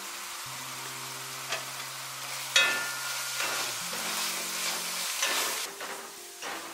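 Ground meat and onions sizzling in a nonstick frying pan while a spatula stirs and scrapes through them. The scraping starts about a second and a half in, with one sharp knock against the pan a second later.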